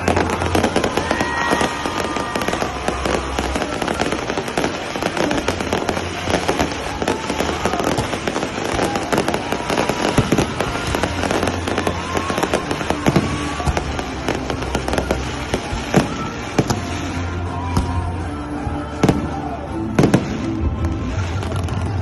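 Fireworks display: continuous crackling and popping of bursting shells, with several louder sharp bangs in the last third, over background music.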